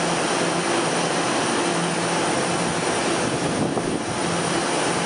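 An EMU700 electric commuter train standing at the platform, its onboard equipment running with a loud, steady whir and a low hum that comes and goes.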